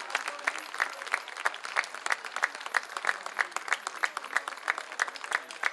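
A crowd applauding, with sharp claps in a steady rhythm at about three a second over the general clapping.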